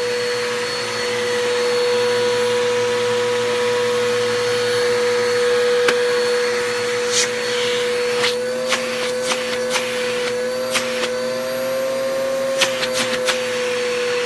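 Bissell PowerForce Bagless upright vacuum cleaner running with a steady, high motor whine. From about halfway through, scattered sharp clicks sound over it.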